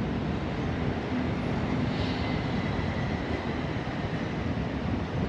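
Private jet's engines giving a low, steady rumble as it climbs away after takeoff.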